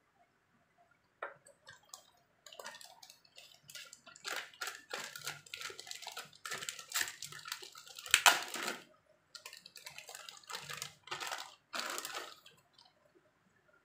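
Thin clear plastic bags crinkling and rustling in the hands as a figure is pulled out of its wrapping, in irregular crackly bursts that start about a second in and are loudest about two-thirds of the way through.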